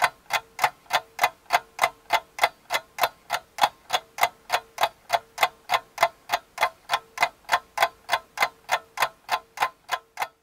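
Mechanical alarm clock ticking evenly, about three ticks a second, over a faint steady hum.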